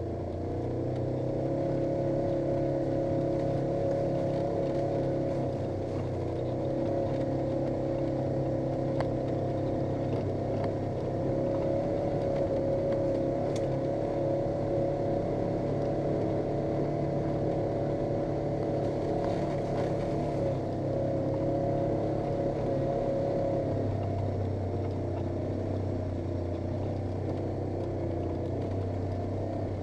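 Polaris RZR 900 S side-by-side's parallel-twin engine running steadily under way, a constant drone with a higher whine over it. The engine note changes about three-quarters of the way through as the higher tone drops away.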